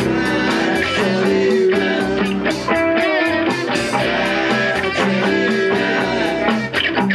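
Live rock band playing a guitar-led passage, with two electric guitars played through amplifiers over a steady drum beat.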